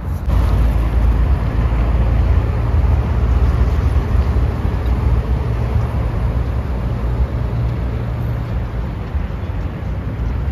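City street traffic, a steady noise of passing vehicles with a heavy low rumble, which grows louder just after the start.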